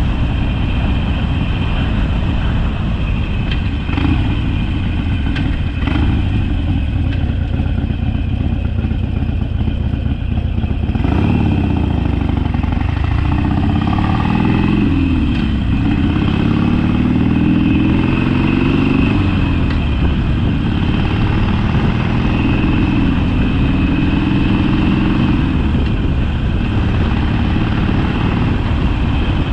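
Harley-Davidson Sportster's V-twin engine running under way, a steady low rumble at first. From about eleven seconds in, the engine note climbs and drops several times as the bike accelerates through the gears.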